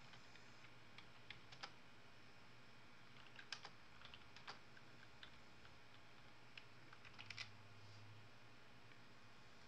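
Typing on a computer keyboard: sparse, irregular key clicks in small clusters, over a faint steady room hum.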